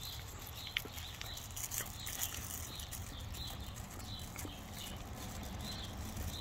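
Dog licking peanut butter off a plastic-wrapped canvas: a steady run of wet tongue laps and smacks on the plastic film, about two a second, over a low steady rumble.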